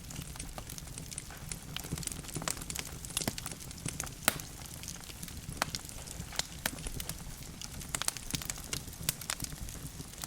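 Wood fire burning in a fireplace: logs crackling with frequent irregular sharp pops and snaps over a soft steady low rumble of the flames.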